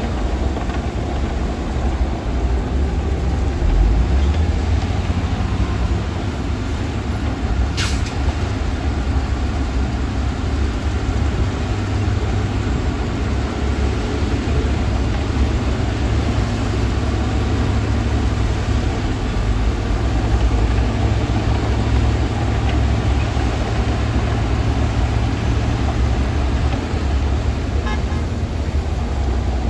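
Heavy diesel engine of a Shantui DH17-C2 bulldozer running steadily under load with a deep, even rumble. A single sharp click comes about eight seconds in.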